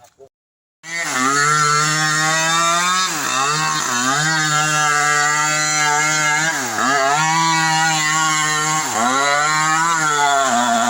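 Two-stroke chainsaw running at high revs, starting suddenly under a second in; its pitch dips sharply and recovers three times.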